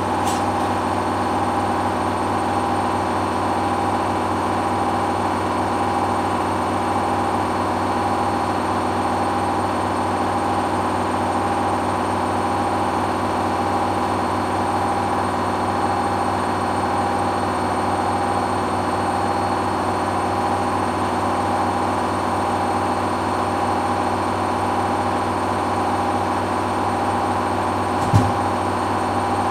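Hoover washing machine running steadily on its final spin, its motor holding a steady whine, with a single knock near the end.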